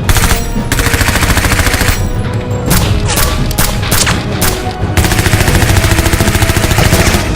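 Rapid machine-gun gunfire sound effects in long, continuous bursts, with background music underneath.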